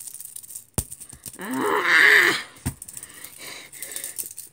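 A boy's drawn-out, wavering wordless vocal noise, a groan that sounds like a moo, lasting about a second from roughly a second and a half in. A few sharp clicks come before and after it.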